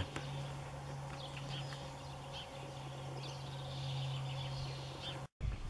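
Rural outdoor ambience: faint scattered bird chirps over a steady low hum. The sound drops out briefly near the end.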